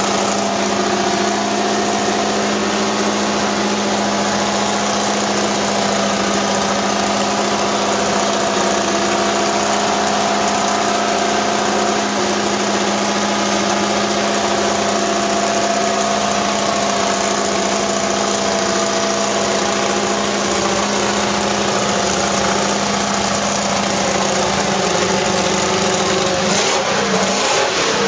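Mercedes-Benz W196's 2.5-litre straight-eight engine warming up at a steady idle. Near the end the throttle is blipped, the pitch rising and falling a few times.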